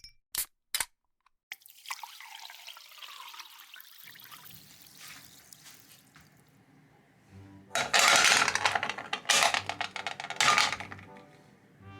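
Two sharp clinks, then liquid pouring. From about four seconds in, soft background music starts. From about eight seconds in, loud bursts of splashing, running water come in three surges.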